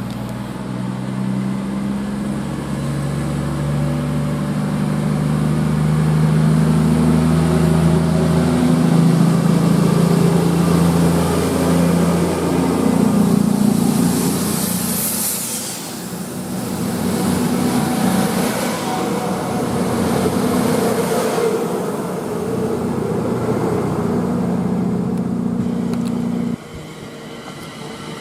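A train passing, with a steady low machinery hum under a loud rushing noise that swells and eases, and a hiss high up about halfway through. The sound drops suddenly near the end.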